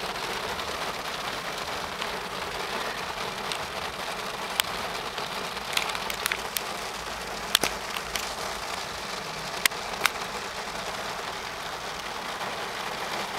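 Heavy rain pouring onto a car's roof and windshield, heard from inside the cabin as a steady hiss, with a handful of sharp ticks in the middle.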